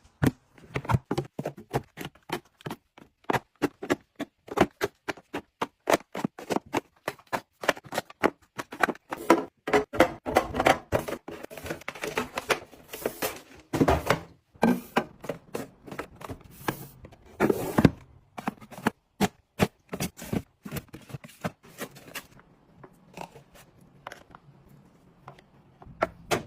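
Rapid handling sounds of restocking: many quick clicks, taps and knocks as packaged items and containers are picked up and set down, about two to three a second. They thin out to a few faint taps near the end.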